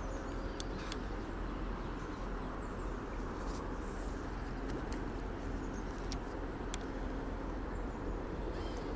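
Steady low outdoor background noise with a few faint clicks.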